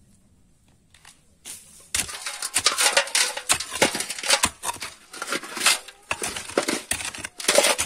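Short-handled hoe chopping and scraping into packed soil at the bottom of a pit, dragging the earth into a metal pan: rapid, irregular scrapes and knocks that start about two seconds in.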